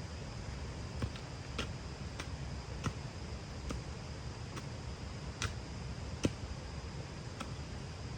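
A series of short, sharp clicks or taps, roughly one a second, over a steady low background rumble.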